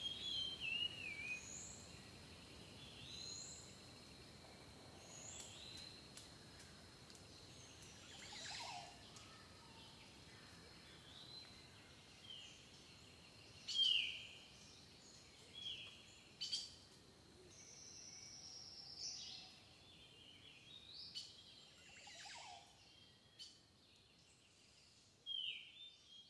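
Birds chirping: short, downward-slurred chirps, a quick run of them at first and then scattered through the rest, over a faint background hiss. A few faint clicks come in between. No drum beat is heard.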